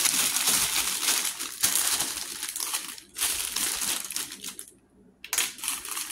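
Packaging crinkling and rustling as it is handled, with a brief pause about five seconds in.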